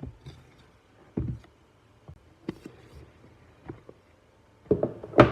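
Unboxing handling of a box and its packaging: scattered taps and clicks, a dull thump about a second in, and a louder cluster of knocks near the end.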